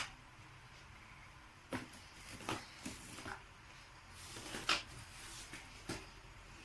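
Small plastic toys being handled: a handful of soft, scattered clicks and knocks against a quiet room.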